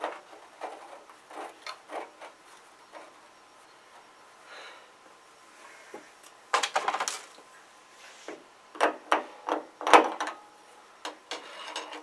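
Scattered clicks, taps and scrapes of hands and metal tools at the element port while a new screw-in electric water heater element is fitted by hand. There are two louder, busier stretches of scraping and clicking, around seven seconds in and again around nine to ten seconds in.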